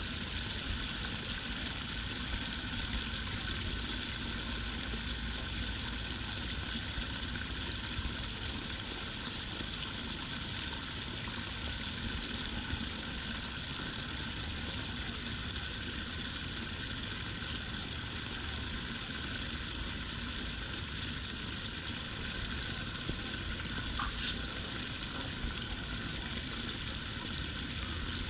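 Steady rush of water, with a low rumble underneath.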